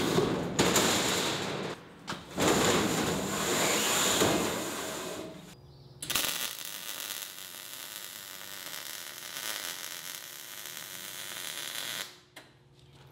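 A large thin steel sheet being handled and flexed as it is laid down onto a steel door frame, loud and uneven, for the first five seconds or so. Then a MIG welder's arc gives a steady crackling hiss as the sheet is welded to the frame, stopping about twelve seconds in.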